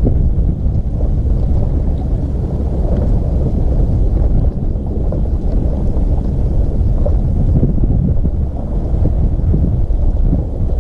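Wind buffeting the microphone: a loud, steady low rumble that wavers unevenly.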